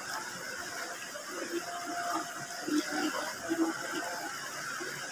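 Steady rushing of a shallow river flowing over stones, with a few faint, brief voice-like murmurs over it between about one and four seconds in.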